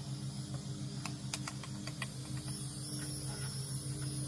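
Epsom salt poured from a plastic measuring cup into a plastic pump-sprayer tank: a scatter of light clicks and taps of crystals and cup against the plastic, over a steady low hum.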